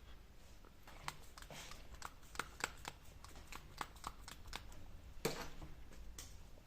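A series of irregular sharp clicks, about a dozen at uneven spacing, with one louder knock about five seconds in.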